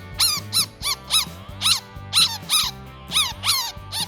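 Chinchilla squeaking: a run of about ten short, high squeaks, each rising and then falling in pitch, two to three a second. Background music plays underneath.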